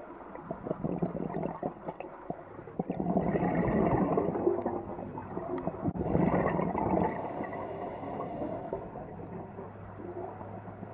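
Underwater sound of a scuba diver breathing through the regulator: two long gurgling rushes of exhaled bubbles, then a short high hiss as air is drawn in. A faint steady low hum runs underneath.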